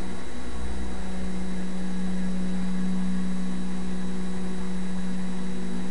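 Steady electrical hum with a constant hiss picked up by a webcam's built-in microphone, unchanging throughout.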